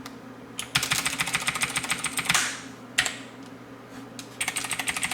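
Keys of a Motospeed CK104 mechanical keyboard pressed in fast runs of clicking, one from about a second in and another starting near the end. The presses step the backlight effect's speed up and down.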